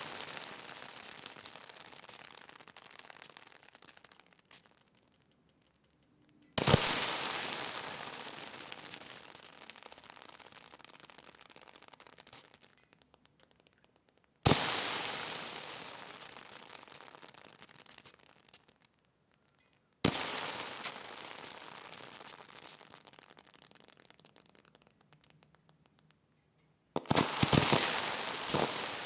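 Water sizzling in repeated separate bursts: each starts suddenly with a loud crackling hiss that fades away over about five seconds before stopping. Four new bursts start, roughly every six to seven seconds.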